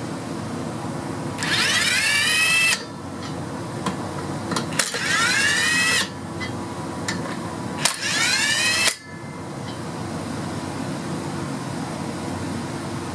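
Ingersoll Rand W5152 brushless 20 V compact cordless impact wrench run three times on trailer wheel lug nuts, each burst lasting a second or so, its motor whine rising in pitch as it spins up and cutting off sharply when the trigger is released. A steady fan-like hum sits underneath.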